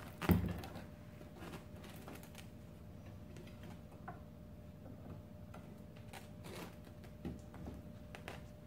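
A low thump about a third of a second in, then scattered light taps and clicks as a crusty sourdough loaf cut in half is handled on a wooden cutting board.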